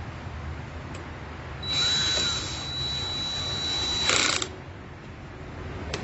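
Cordless drill/driver running for about two and a half seconds with a steady high motor whine as it drives a terminal screw. It ends in a short, louder rattle as the screw seats.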